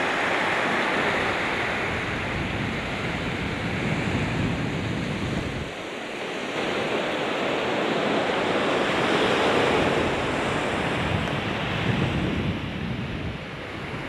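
Sea waves washing onto a sandy beach: a steady rushing wash that swells and eases, dipping about six seconds in and again near the end. Wind blows on the microphone.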